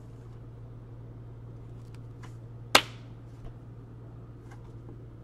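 Hockey trading cards being handled on a metal card tin: one sharp click a little before the middle and a few faint ticks, over a low steady hum.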